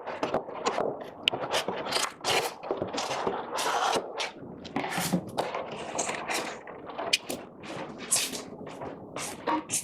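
Cardboard boxes and packaging being handled and moved: a run of irregular scrapes, rustles and light clunks.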